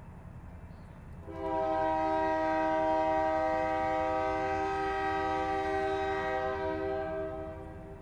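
Diesel locomotive air horn sounding one long blast, several tones at once, starting about a second in and holding for about six seconds over a steady low rumble.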